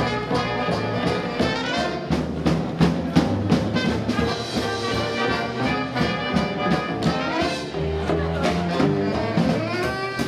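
Dixieland jazz band playing live: horns over a steady drum beat and a stepping bass line.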